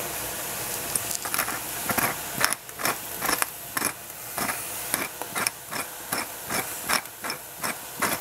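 Hand-twisted pepper mill grinding pepper: a quick run of ratcheting clicks, about two or three a second, starting about a second in.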